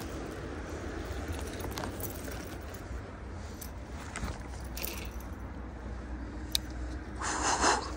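A small bass hooked on a spinnerbait is swung out of the water onto the grass bank, with scattered clicks and handling noise over a steady low rumble. Near the end comes a short, loud rustling, jangling burst as the fish and lure thrash in the grass.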